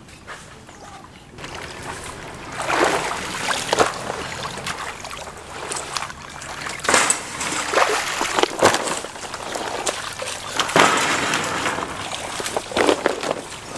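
Water splashing and sloshing, with several louder splashes at irregular intervals.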